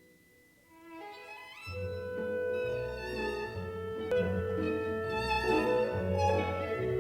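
Near silence for about a second, then orchestral string music led by violin fades in and carries on.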